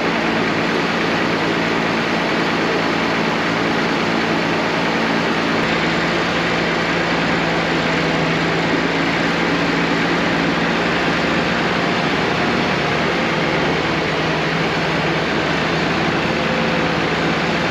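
Diesel engine of a MacDon M205 self-propelled swather running steadily while the machine is driven slowly, heard close up from the machine itself.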